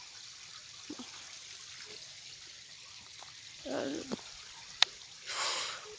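Steady rush of falling water from a waterfall, heard faintly. A brief murmured voice comes in about four seconds in, and a short louder burst of noise follows near the end.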